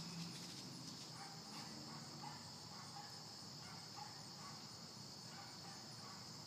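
A faint, steady, high-pitched trilling chorus of night insects.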